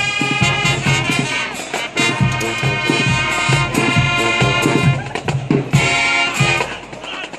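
Marching band playing: the brass section holds loud chords over a steady drum beat, then breaks into shorter punched notes about five seconds in.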